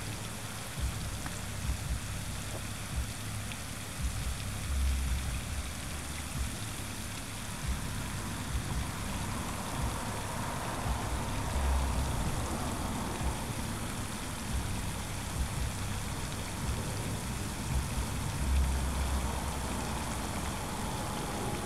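Wind gusting on the microphone, rumbling low in repeated gusts over a steady outdoor hiss.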